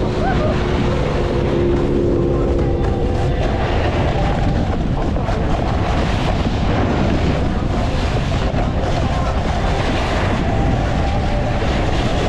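Steady wind rumble on the microphone while snowboarding downhill, with pop music faintly underneath.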